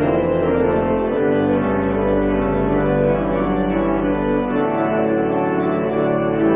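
Organ playing the closing postlude with full, sustained chords over deep pedal notes. The bass note changes about a second in and again after about four and a half seconds.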